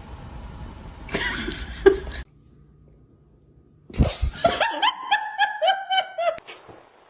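A run of quick, high-pitched laughter, about a dozen short notes in two and a half seconds. Before it comes faint rustling with a single knock, then a brief hush.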